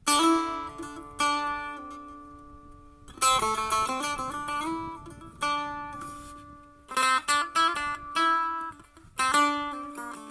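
Setar, a Persian long-necked lute, played solo: single plucked notes ring out and fade, in short phrases with a few quick runs of notes, over a low note that keeps ringing.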